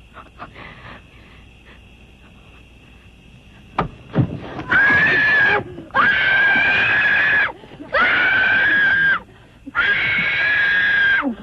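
A high-pitched voice screaming over and over: four long, steady screams, each a second or more, beginning about four and a half seconds in after a single sharp click.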